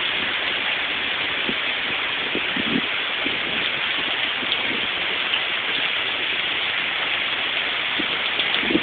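Steady rain and wind of a hurricane's outer bands, an even, unbroken hiss.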